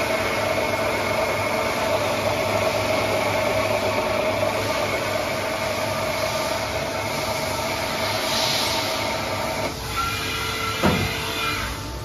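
Haas TL-25 CNC lathe running, a steady machine hum with a whine over it that cuts out suddenly about ten seconds in, followed by a thump.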